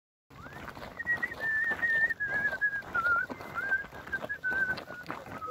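A person whistling a slow tune that steps gradually down in pitch, over the crunch of footsteps on a dry dirt and gravel trail.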